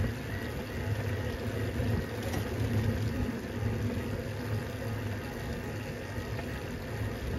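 Steady low rumble of a small vehicle moving along a paved road.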